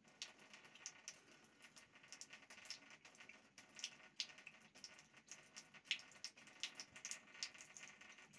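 A cat lapping water from a thin stream running from a bathtub tap: quiet, quick wet licks a few times a second over the faint trickle of water.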